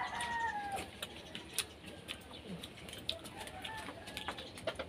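A rooster crowing: the held end of its crow slides downward and stops under a second in. Faint clicks of eating follow.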